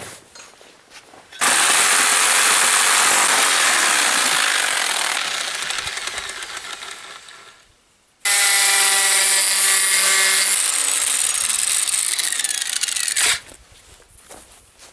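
Handheld electric power saw cutting strips from a thin wooden board, run twice. It starts abruptly about a second and a half in and dies away over several seconds, then starts again about eight seconds in with a steady motor hum and stops sharply near the end.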